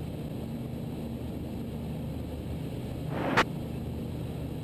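Engine of an Ikarus C42 microlight droning steadily in cruise, heard muffled through the headset intercom feed. About three seconds in, a brief burst of hiss swells and cuts off sharply.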